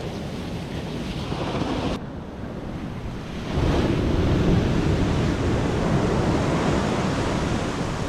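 Ocean surf washing onto the beach, with wind blowing across the microphone. It changes abruptly about two seconds in and grows louder a second and a half later.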